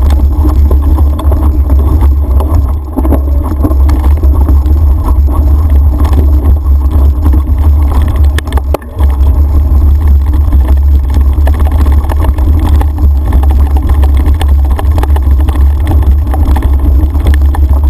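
Steady, loud low rumble of wind and ride vibration on the microphone of a camera carried on a mountain bike over a rough dirt trail, with a few short knocks from jolts.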